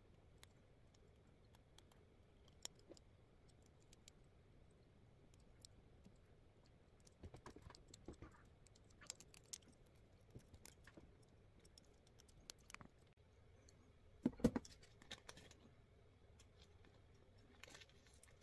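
Faint, scattered clicks and taps of a small plastic Gundam figure being handled while a sticker is peeled from its sheet, with a louder pair of knocks about fourteen seconds in.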